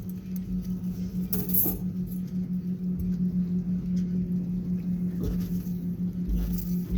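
A steady low motor hum, slightly pulsing, with scattered light clicks and knocks over it.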